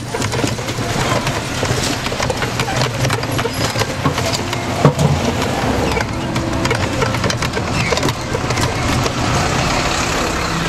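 Street traffic heard from a moving pedal rickshaw: passing cars and motor scooters running, road noise, and frequent small knocks and rattles, with one sharper knock about halfway through.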